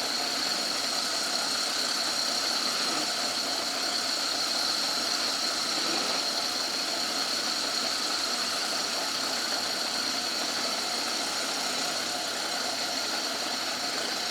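Old Myford lathe running steadily with a high whine while taking a roughing cut on a bush.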